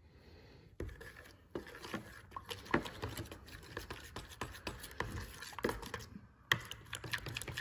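Metal spoon stirring a runny glue-and-water mixture in a ceramic bowl, with repeated light clicks and scrapes of the spoon against the bowl, starting about a second in. The stirring pauses briefly near the end, then resumes.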